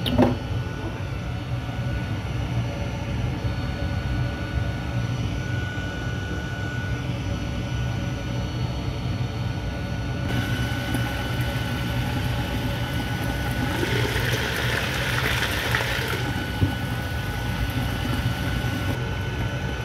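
Pieces of meat frying in oil in a covered non-stick pan, a hissing sizzle that comes in about halfway and is loudest a few seconds before the end, over a steady low hum.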